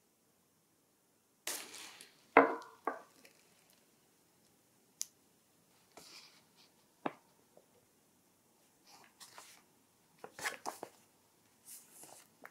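A small ceramic dish and its paper gift packaging being handled: a rustle, then a short ringing clink about two and a half seconds in, followed by scattered light knocks and ticks and paper rustling near the end.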